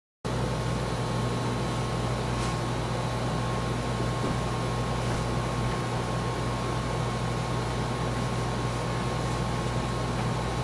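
Steady fan-like whir with a low electrical hum and a faint steady high tone, cutting in just after the start.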